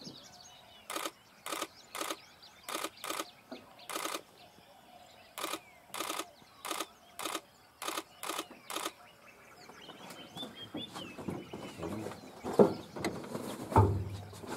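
Camera shutter firing single shots, about a dozen sharp clicks at irregular intervals of roughly half a second over the first nine seconds. After that birds chirp and two dull thumps come near the end.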